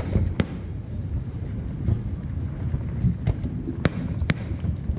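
Fireworks shells bursting: five sharp bangs, two near the start and three close together about three to four seconds in, over a continuous low rumble of the display.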